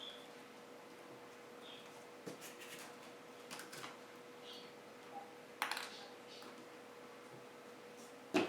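Scattered small clicks and taps of a screwdriver and tiny screws being worked out of a laptop's plastic screen housing, with a sharper knock about 5.5 seconds in and the loudest near the end, over a faint steady hum.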